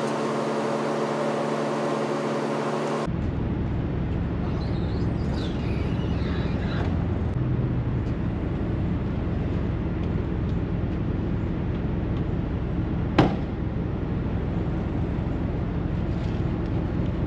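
Semi truck's diesel engine idling steadily, with one sharp metallic clank about thirteen seconds in.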